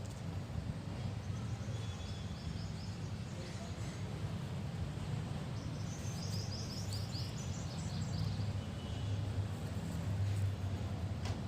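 Small birds chirping in quick runs of short high notes, once about two seconds in and again in a longer burst around six to eight seconds in, over a steady low rumble. A brief click comes near the end.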